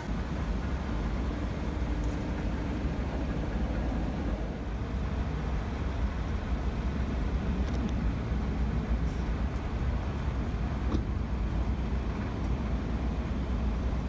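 Steady low rumble of a moving road vehicle, with a few faint clicks.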